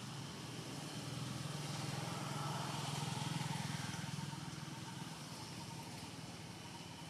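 A motor vehicle, likely a motorbike, passing by: its low engine hum grows louder to a peak a little past three seconds in and then fades away.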